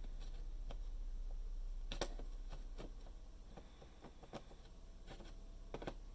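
Scattered light clicks and knocks of sockets and plastic clips being handled on a socket rail organizer, the sharpest about two seconds in, over a faint low hum.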